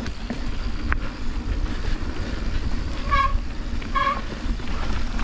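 Mountain bike rolling down a dusty dirt trail: a steady low rumble of tyres and wind on the microphone with a few rattling clicks. Two short high tones sound a little past the middle, about a second apart.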